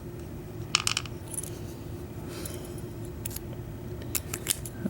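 Small brass pins and parts of a disassembled padlock clicking and clinking as they are moved about on a hard surface: a handful of light separate ticks, with a cluster about a second in and several more near the end.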